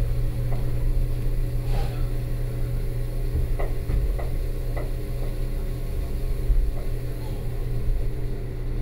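Electric cog railway train running up the line, heard from the driver's cab: a steady hum from the traction motors and running gear, with a few light, irregular clicks and knocks.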